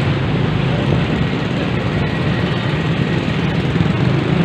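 Loud, steady rumbling street noise of passing vehicle traffic.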